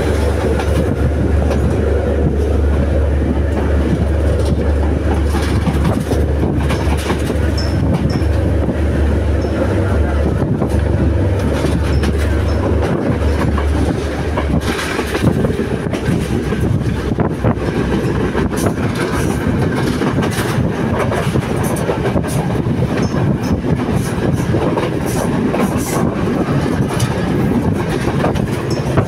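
Passenger train running along the track, heard from an open carriage doorway: a steady rattle and rumble of the wheels on the rails with irregular clickety-clack over the joints. A heavy low rumble eases off about halfway through.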